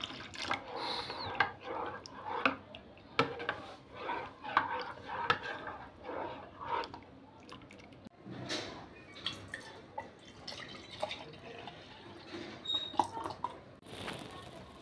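Water poured into a bowl of mashed bael fruit pulp, then a metal spoon stirring the mixture, with sloshing and many irregular sharp clinks of the spoon against the bowl.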